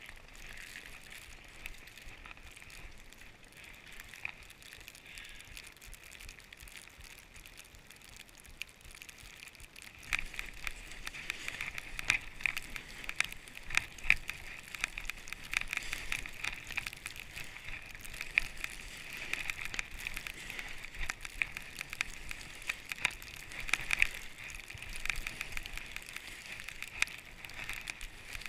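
Skis sliding over groomed snow, a steady scraping hiss full of small crackles, which grows louder and busier about ten seconds in.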